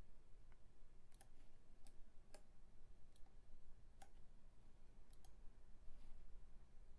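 Computer mouse clicking: a faint scatter of single clicks at irregular intervals over a low room hum.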